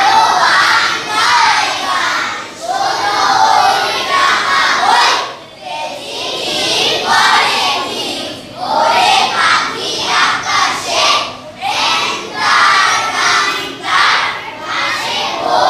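A large group of children's voices in unison, loud, in phrases of about three seconds with short breaks between them.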